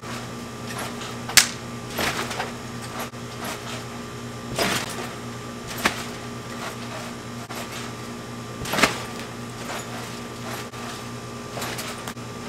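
Trampoline mat and springs thudding and creaking under someone's jumps and flips: a handful of sharp impacts a few seconds apart, over a steady hum.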